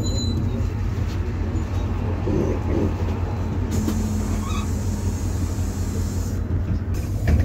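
PAZ-320302 bus heard from inside: the engine's steady low drone and road noise as the bus slows toward a stop. About halfway through a hiss of air starts and runs for about three seconds, and a short knock sounds near the end.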